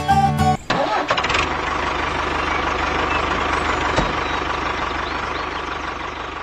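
Music cuts off just after the start, then a small engine runs steadily with a fast, even low chug, and a single sharp click about four seconds in.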